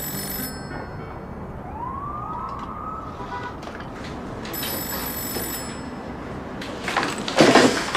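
Telephone ringing, two rings about five seconds apart, with a few rising tones between them. Near the end comes a loud clatter as the handset is picked up.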